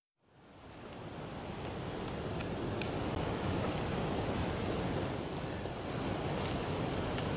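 Steady chorus of tropical insects, one loud, even, high-pitched buzz, over a low rushing noise; it fades in over the first second or so.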